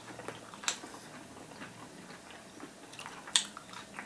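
A person chewing and biting into shawarma, with small wet mouth clicks and two sharper smacks, about a second in and near the end.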